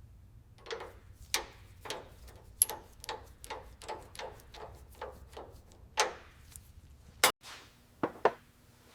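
A run of sharp knocks or strikes, about two a second, each with a short ring, followed by a few louder, spaced strikes in the last three seconds.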